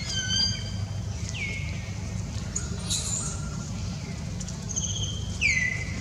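Baby macaque giving high, thin squealing cries, several drawn-out calls about every couple of seconds, some sliding down in pitch and levelling off. A brief rustle comes about three seconds in.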